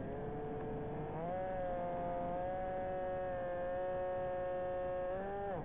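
Electric motor and propeller of an FPV model aircraft whining at a steady pitch. The pitch rises about a second in as the throttle is opened, holds, then drops sharply at the end as the throttle is cut.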